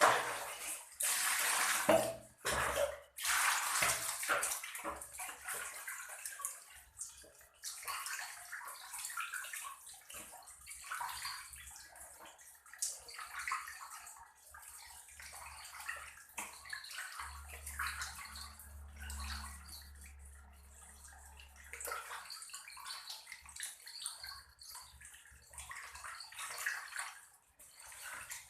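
Water splashing and sloshing in irregular bursts as fish are washed and cleaned in water, loudest in the first few seconds.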